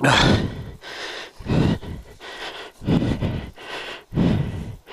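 A person breathing hard and loudly, with a heavy breath about every second and a half, winded from the work of hauling a mired motorcycle out of the mud.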